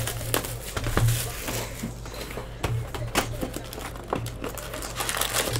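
Plastic shrink wrap on a trading card hobby box crinkling and crackling as it is slit and pulled off, in many short, irregular crackles.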